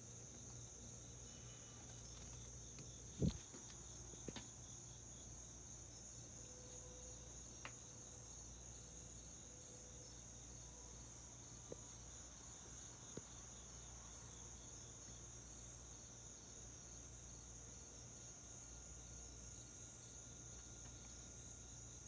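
Faint steady trilling of crickets over a low hum. A single sharp thump about three seconds in, and a few light clicks later.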